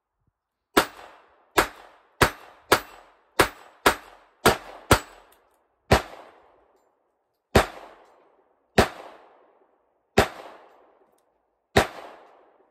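Ruger LCR .22 LR double-action revolver firing. Eight quick shots come in about four seconds, then five slower single shots about a second and a half apart. Each is a sharp crack followed by a short fading echo.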